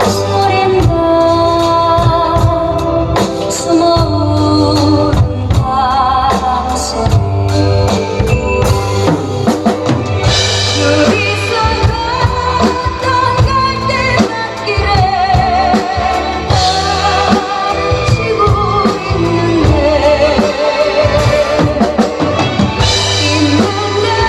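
Drum kit played along to a recorded Korean trot ballad, a woman singing a wavering melody with vibrato over the backing band and a steady beat of kick and snare.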